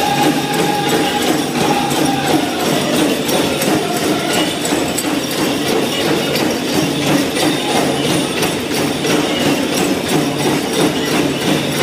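Powwow drum group playing a men's traditional song: a steady beat on the big drum under the singers' voices, with a held sung note sliding down about two seconds in. Dancers' bells jingle along.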